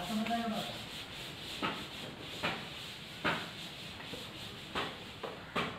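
Chalk being wiped off a blackboard: a series of short, irregular rubbing strokes as the board is erased.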